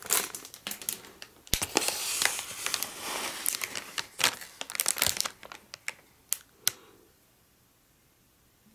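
Clear plastic toy packaging crinkling as it is handled: irregular sharp crackles with a denser stretch in the middle, stopping about two-thirds of the way through.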